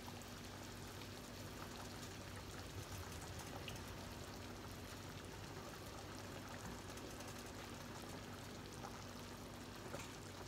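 Faint, steady sizzling and bubbling of food cooking on the stove, over a low steady hum.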